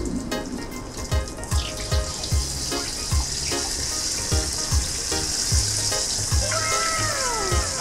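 Pork belly deep-frying in hot oil, a steady high sizzle with no popping or spattering. Under it runs background music with a steady beat and some falling tones near the end.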